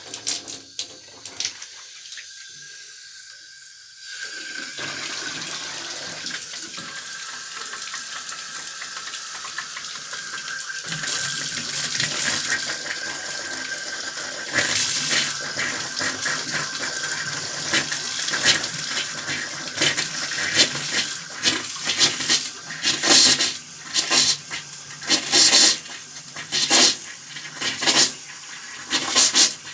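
Water tap running with a steady hiss and a thin whistle, then sputtering: the flow breaks into irregular loud spurts and bursts, thickest near the end, like a tap 'sneezing'. A low hum joins partway through.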